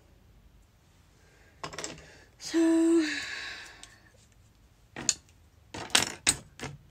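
Clicks and clatter of a plastic mascara tube and other makeup items being handled, with a cluster of sharp clicks near the end. About two and a half seconds in, one short, loud, steady-pitched sound fades away over about a second.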